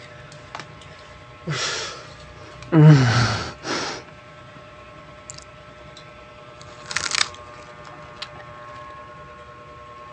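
Crisp green-leaf lettuce crunched in a bite taken right at a fuzzy-windscreen microphone, a short crackling crunch about seven seconds in. Earlier, around three seconds in, comes a loud mouth-made vocal noise that slides down in pitch, with short bursts just before and after it.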